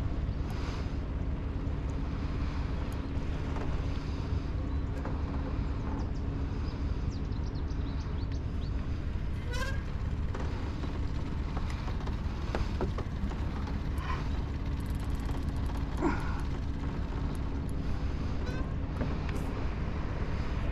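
A boat's outboard motor running steadily, a low, even hum.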